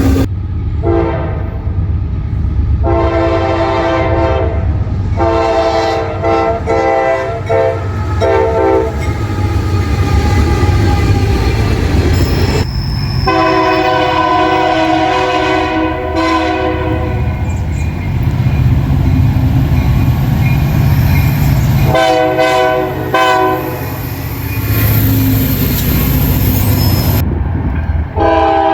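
Locomotive air horn sounding a series of blasts, some long and some short and clipped, over the low rumble of a running train.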